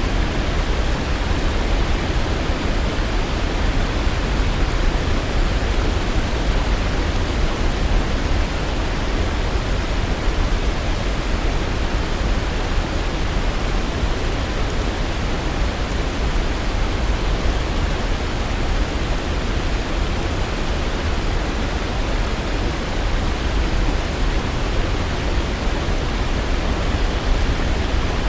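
Waterfall: water falling and rushing in a steady, unbroken roar with a deep low rumble.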